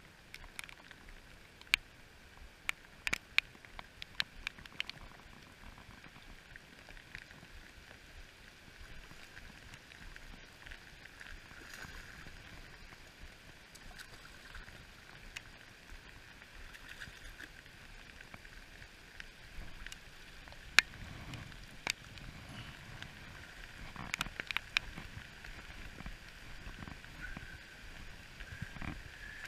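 Steady rain falling on a river, with scattered sharp ticks of raindrops striking the camera, bunched in the first few seconds and again around twenty to twenty-five seconds in.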